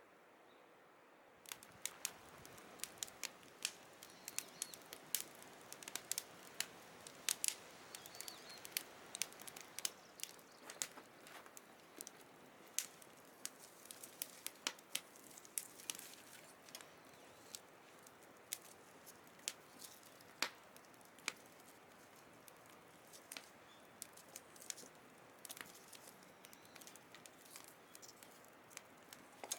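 Firewood burning in a fire pit, crackling with many irregular sharp pops that start about a second and a half in.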